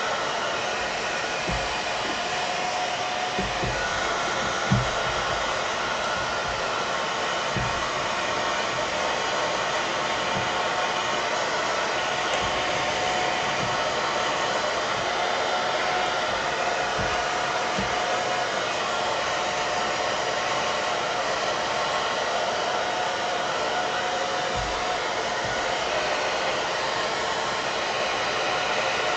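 Hair dryer blowing steadily, drying leather freshly cleaned with saddle soap. A few soft low bumps from handling, the loudest about five seconds in.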